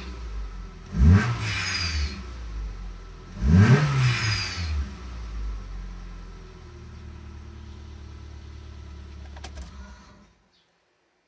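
Nissan Serena PC24 engine blipped twice while parked, each rev rising and falling back, with a high falling whistle from a fake (non-turbo) blow-off valve as the throttle snaps shut. The engine then idles steadily until the sound cuts off suddenly near the end, heard from inside the cabin.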